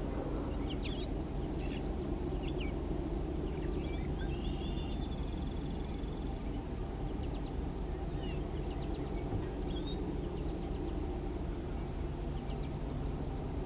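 Wild birds chirping on and off, with a short buzzy trill about five seconds in, over a steady low background rumble.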